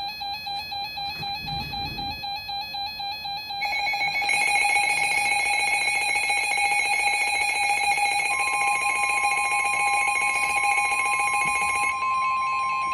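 Weather radio alert tones: a pulsing electronic beep, then a louder steady alarm from about four seconds in. A single steady NOAA Weather Radio warning alarm tone joins about eight seconds in, signalling a new warning broadcast.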